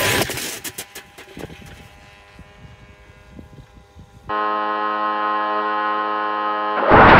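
A few light knocks and clicks over low background, then a steady, even hum from the Penguin drone's engine idling on the launcher. Near the end a sudden loud rush as the engine goes to full power and the drone is launched.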